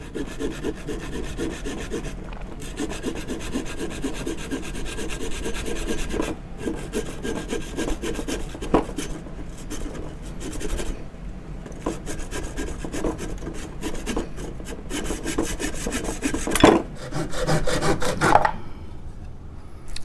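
A hand tool worked on wood with rapid, steady rasping strokes, with a few sharper knocks in the second half.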